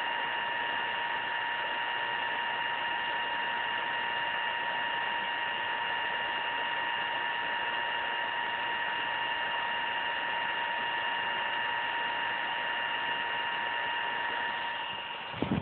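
Alienware M17x laptop cooling fan running steadily: a constant rushing hiss with a thin, steady whine on top.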